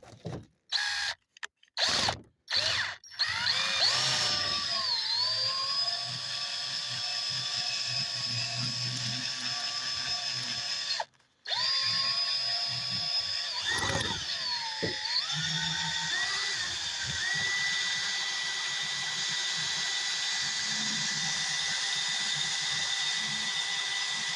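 Electric drill turning a 2-inch auger bit into a wooden mug blank. A few short trigger blips, then a steady motor whine that sags in pitch as the bit bites into the wood. It stops briefly about halfway, then starts again and dips once more under load before running steadily.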